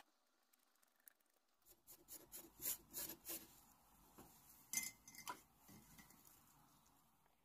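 Quiet handling sounds of a stain brush and a thin wood sheet on a work table: a run of light clicks and scrapes, then two sharper clicks just under five seconds in, the first with a brief clink.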